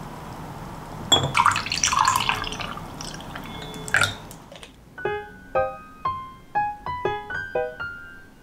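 Liquid poured into a glass for about three seconds, ending with a short clink about four seconds in. Then gentle piano music, one note at a time.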